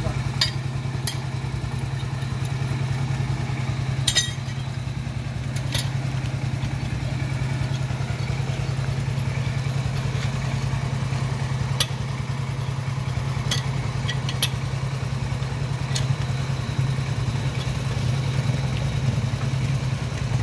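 An engine idles steadily, with sharp metallic clinks now and then as a pipe wrench knocks against a steel soil-sampling tube.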